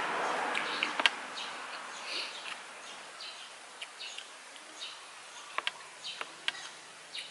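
Outdoor rural ambience: scattered short bird chirps over insects buzzing, with a hiss that fades after the first second or so and a few sharp clicks.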